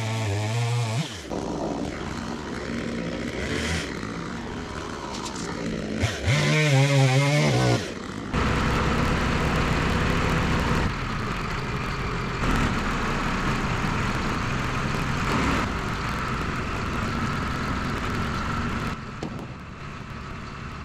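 A gas chainsaw cuts through a log in two short bursts, its engine pitch wavering as it bogs in the cut. Between and after the bursts an engine runs steadily.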